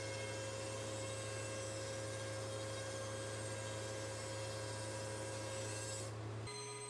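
Thickness planer running steadily: a low motor hum with a few held whining tones over an even hiss. The held tones shift near the end.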